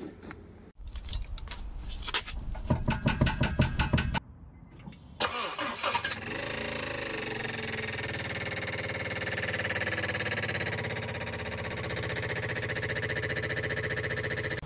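Worn Nissan Armada wheel bearing grinding as the hub turns, a rough, crunchy, rhythmic grinding for about three seconds. About five seconds in an engine starts and then runs steadily.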